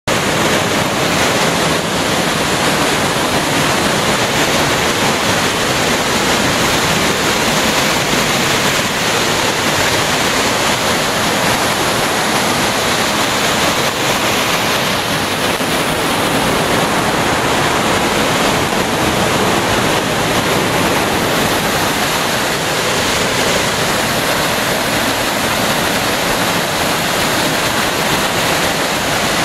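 Waterfall pouring down close by: a loud, steady rush of water.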